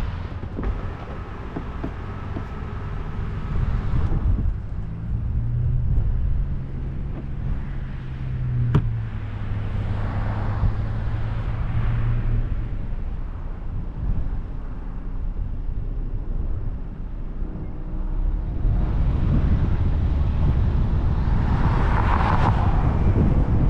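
Car engine idling as a low steady rumble, then the car pulls away and gathers speed, its engine and road noise growing louder over the last five seconds. A single sharp click about nine seconds in.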